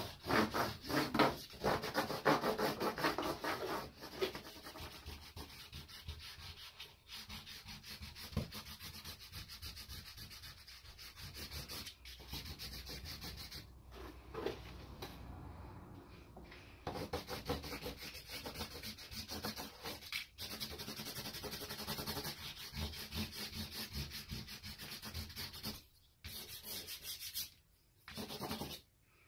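A soft black drawing stick scratching and rubbing across heavy cartridge paper in fast, repeated hatching strokes, loudest in the first few seconds, with a few brief pauses.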